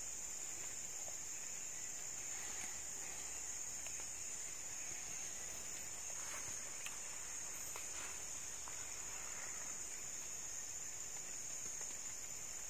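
Steady, high-pitched insect chorus without a break. A few faint rustles and light ticks come in the middle as hands work in dead leaves and twigs.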